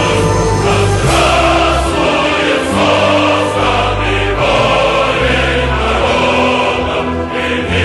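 Inspirational choral music: a choir holding chords over deep bass notes that change every second or two.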